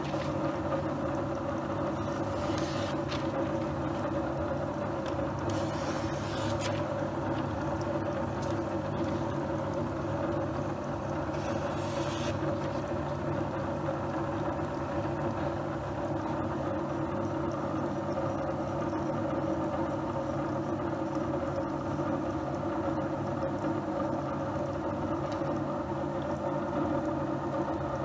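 Dick SM-111 electric knife-sharpening machine's motor running with a steady hum, switched on just as it begins. A few short high rasps of a knife slicing through paper come within the first twelve seconds.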